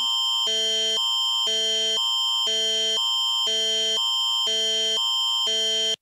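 Canadian Alert Ready attention signal: two chords of steady electronic tones swap every half second over one held high tone, cutting off abruptly at the end. It heralds a tornado warning broadcast.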